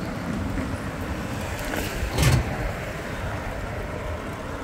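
Steady wind and tyre noise from a bicycle rolling along an asphalt road, with one brief, loud knock about two seconds in as the bike rolls over raised road markers.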